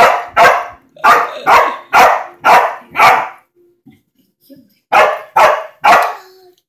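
Puppy barking at a cat: a run of seven loud barks at about two a second, a pause of about a second and a half, then three more barks.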